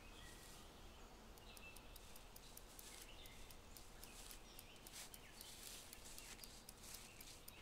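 Quiet woodland ambience: a few faint, short bird chirps, with a run of light, quick clicks through most of it.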